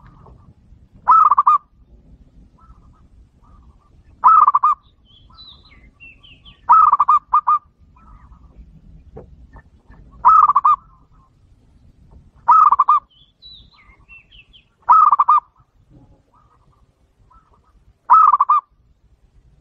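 Zebra dove (perkutut) singing: a short, quick run of cooing notes, repeated seven times about every two and a half to three seconds, with faint high chirps in between.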